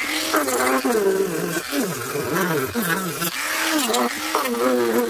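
Dremel rotary tool with a sanding drum buzzing as it sands papier-mâché, its pitch wavering rapidly up and down.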